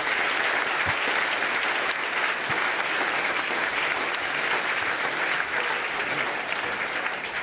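Lecture-hall audience applauding steadily, a dense sustained clapping that tapers slightly near the end.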